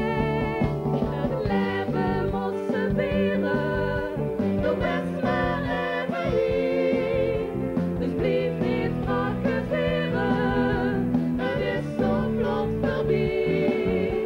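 A woman singing a song into a microphone over instrumental accompaniment, her sung melody wavering and gliding above steady held backing notes.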